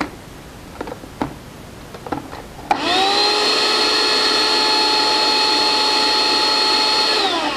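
Small countertop blender with a tall jar blending a chickpea mixture: a few light knocks and clicks, then a little under three seconds in the motor starts with a brief rising whine, runs at a steady high whine for about four and a half seconds, and winds down with falling pitch near the end.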